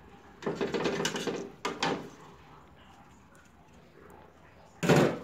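Metal skimmer knocking and scraping against a steel cooking pot: a rattling scrape for about a second, two sharp clicks, then a loud knock near the end.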